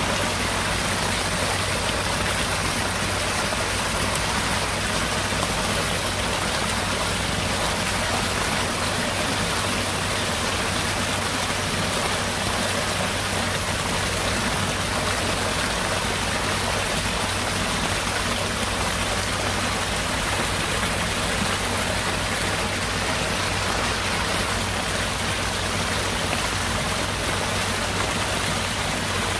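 Heavy rain falling steadily on flooded ground: a dense, even hiss that stays at the same level throughout.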